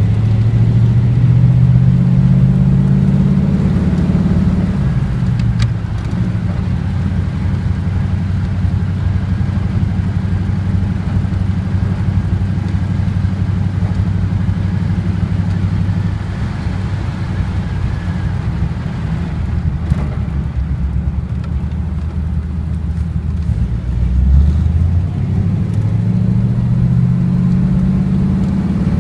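A 1939 car's engine while driving: it picks up speed over the first few seconds, then runs steadily. Near the end it slows, gives a short low knock, and speeds up again.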